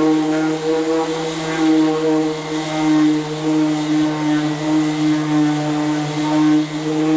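Power sander running steadily on body filler, a motor whine whose pitch wavers slightly as it is worked across the panel.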